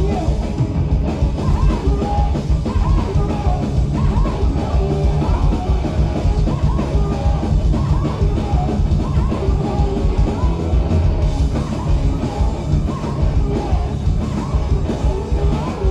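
Live punk rock band playing loudly: electric guitar, bass guitar and drum kit, with a woman singing and yelling into a microphone over them.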